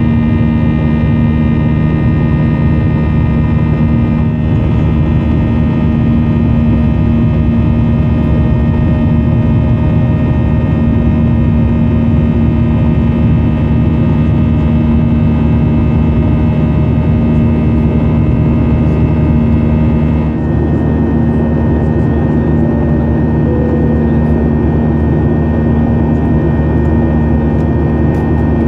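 Boeing 737-800 cabin noise in flight: the CFM56 engines run with a steady drone and several steady whining tones over the airflow rumble. The higher tones shift slightly about twenty seconds in.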